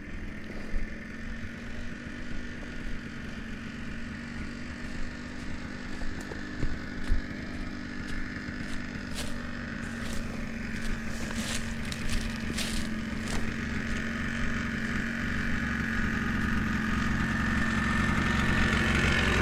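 ATV engine running with a steady drone that grows gradually louder toward the end, with a few sharp clicks in the middle.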